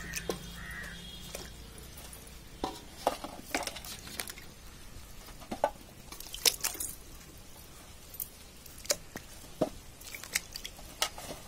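Sweet potatoes being scrubbed by hand in a bucket of water: irregular splashes and drips, with sharp knocks as the tubers hit each other and the bucket.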